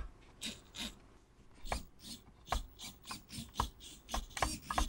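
The small hobby servos of a cheap pan/tilt servo gimbal moving in a dozen or so short jerks, each a brief burst of servo noise, as the radio transmitter's sticks are worked.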